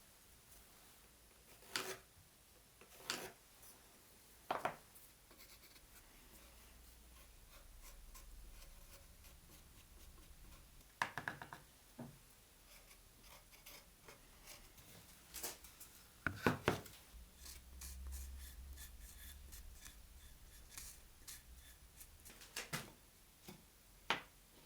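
Faint, scattered knocks and taps with light scraping and rubbing: hand work on a wooden circular-saw jig, with pieces and tools being handled and marked.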